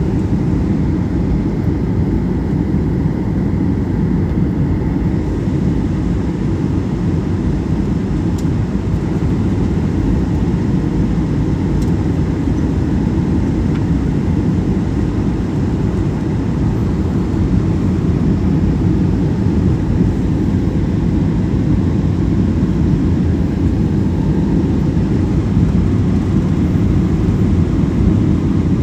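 Airliner noise during a landing at Guwahati airport: a steady low rumble that grows slightly louder over the last third.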